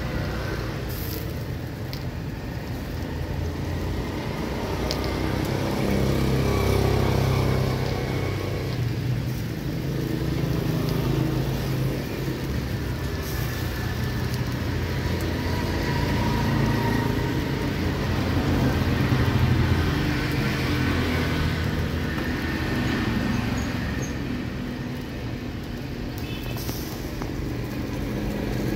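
Street traffic passing close by: a continuous low rumble of vehicles that swells and fades as they go past.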